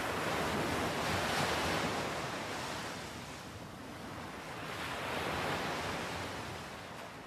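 Ocean surf: waves breaking and washing up the shore, swelling twice and easing off near the end.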